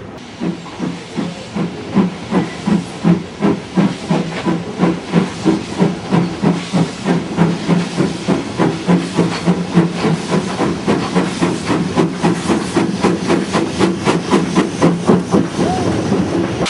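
Steam locomotive hauling a train, its exhaust chuffing in an even rhythm of about three beats a second that quickens slightly, with steam hissing.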